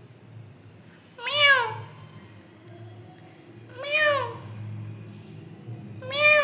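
Pet parrot giving three calls about two and a half seconds apart, each call rising then falling in pitch.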